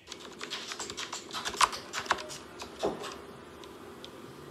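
Typing on a laptop keyboard: a quick run of light key clicks with a few louder taps, stopping about three seconds in.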